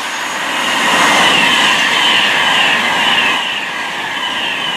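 Virgin Trains Class 390 Pendolino electric train passing at speed, a loud rush of wheel and rail noise that builds to its loudest about a second in and holds as the carriages go by.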